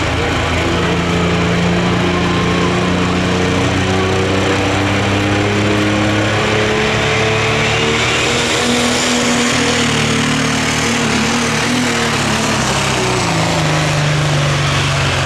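Dodge Ram super stock diesel pulling truck's engine running hard under the load of the pulling sled, a loud steady drone whose pitch climbs slowly and then drops near the end.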